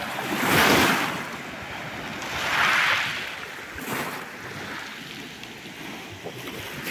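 Small waves of a calm sea washing up onto a pebble beach, surging twice about two seconds apart and then settling into a lower steady hiss.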